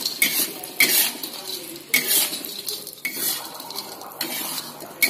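A spatula scrapes and clanks against a wok while anchovies and tofu are stir-fried. The strokes come roughly once a second, some with a bright metallic ring, over the sizzle of the frying food.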